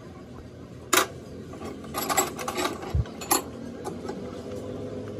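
Several sharp metal clinks and knocks of a spanner against the fittings of a diesel fuel injection pump on a test bench, the loudest about a second in, with a short dull thump about three seconds in.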